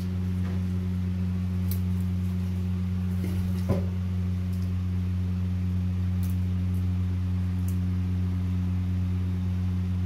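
A steady low hum, unchanged throughout, with one short soft knock about three and a half seconds in.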